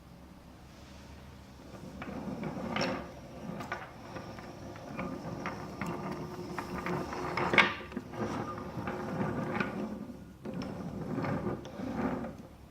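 Wooden toy train rolling and clattering over wooden track, in uneven bursts with sharp clicks. It starts about two seconds in and stops just before the end, with the loudest click near the middle.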